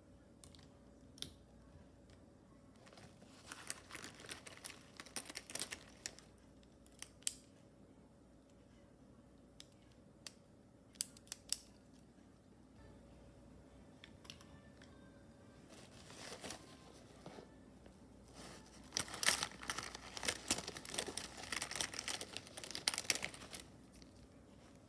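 Plastic pens clicking and rattling against one another as a hand rummages through a fabric zip pencil case, with rustling of the cloth. It comes in bursts with a few single sharp clicks between them, and is busiest near the end.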